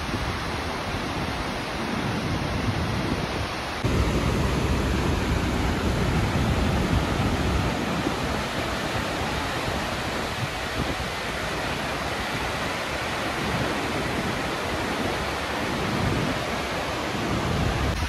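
A waterfall's steady roar, with wind gusting on the microphone. It gets abruptly louder at a cut about four seconds in.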